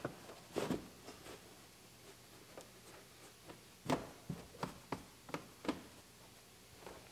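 Scattered light knocks and rubbing from car floor carpet being tucked into place in the footwell: a knock just under a second in, then a run of sharper knocks between about four and six seconds in.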